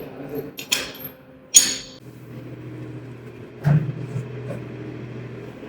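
Metal parts of a sawmill bed clinking and knocking as they are handled and fitted: two sharp clinks in the first two seconds, a dull knock about halfway, over a steady low hum.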